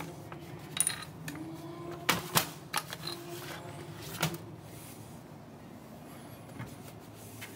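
Light clicks and knocks of small objects being handled at a bathroom washbasin and its tap. The loudest pair comes just after two seconds in, with a few more around three and four seconds, over a faint steady room hum.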